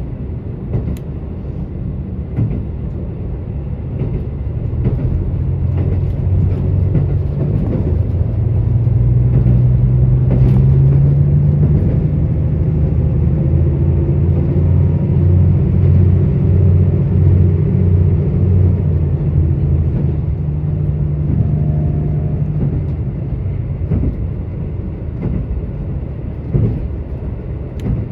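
KiHa 85 diesel railcar's engine heard from inside the car, winding up under power with its pitch rising for several seconds, then holding steady before easing off in the last few seconds. Under it runs the rumble of the train on the rails, with scattered clicks.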